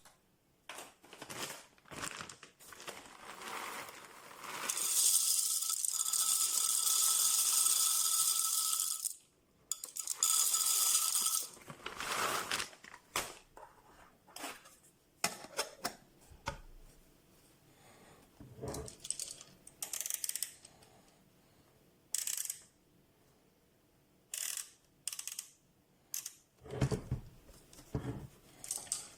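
Mr. Coffee Café Grind electric burr coffee grinder running for about five seconds with a steady whine, stopping, then running again briefly. Around it come scattered clicks and clatter from its plastic parts being handled.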